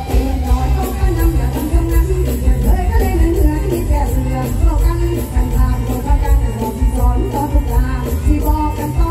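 Live mor lam music played loud through a stage sound system: a woman singing over the band, with heavy bass.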